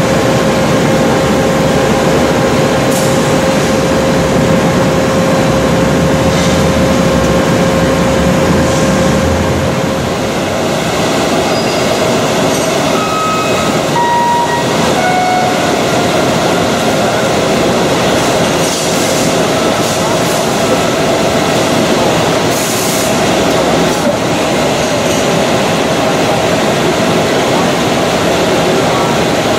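Steel coil processing line with a cluster leveler running: a loud, steady mechanical rumble and hiss with a constant hum as sheet steel runs through the line and off the turning coil. The hum shifts slightly in pitch about ten seconds in, and a few short squeaks at different pitches come around the middle.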